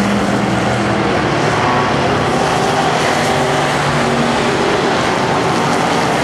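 A pack of dirt-track modified race cars running hard around the oval. Several engine notes overlap, rising and falling in pitch as the cars pass and go through the turns.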